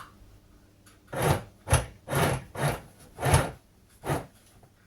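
Domestic sewing machine running a test line of straight stitching in short spurts, six brief rasping bursts about half a second apart as the foot pedal is pressed and released.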